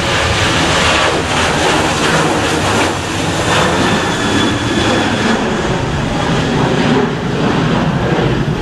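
Jet airliner taking off, a loud steady rush of engine noise with a faint high whine in the middle, mixed with strong wind buffeting the microphone.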